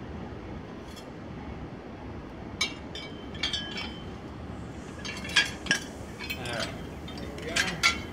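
Metal parts of a trimmer rack clinking and rattling as they are handled, in scattered sharp clicks with a short ring, the loudest a little past the middle and near the end, over steady background noise.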